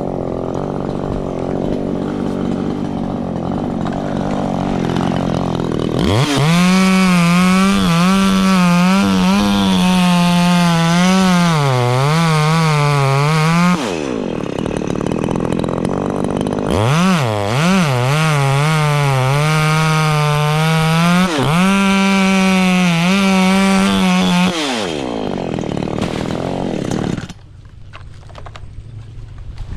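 Echo CS-3510 two-stroke chainsaw running at low speed, then opened up to full throttle twice for about eight seconds each, its pitch wavering and dipping as the chain bogs in the wood. The engine drops back between and after the two cuts and goes much quieter shortly before the end.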